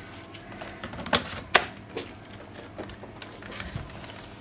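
Plastic clicks and knocks from a laptop being tipped up and its battery refitted, with two sharp clicks a little over a second in.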